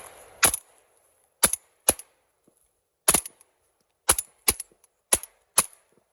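A string of shotgun shots: eight sharp reports over about five seconds, several fired in quick pairs.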